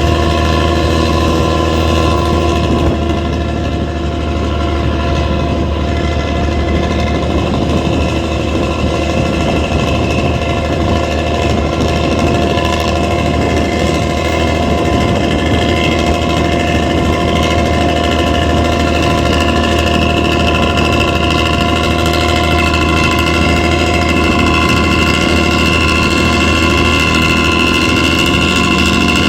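Bus diesel engine running steadily, holding a constant pitch.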